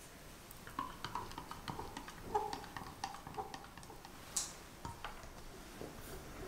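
Instant coffee being stirred into hot water in a glass cup: a spoon taps and clinks irregularly against the glass, each tap ringing briefly, for about four seconds.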